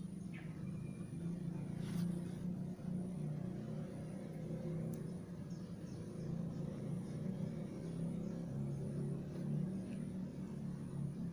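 A motor running steadily with a low, slightly wavering hum, with a couple of faint clicks.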